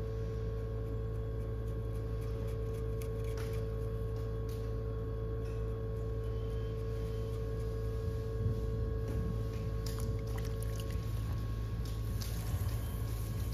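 Electric potter's wheel running, a steady motor hum with a whine above it that drops away about eleven seconds in, with faint wet splashing of water and clay.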